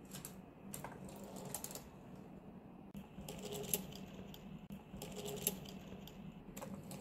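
Plastic LEGO Technic parts clicking and rattling as a rubber-band-powered toy car is set off and runs across a tabletop, with two busier stretches of rattling in the middle, over a faint steady hum.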